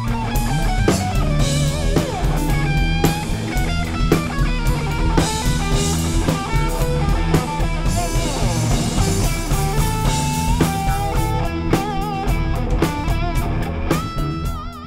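Instrumental band music: a guitar lead over bass and a drum kit keeping a steady beat.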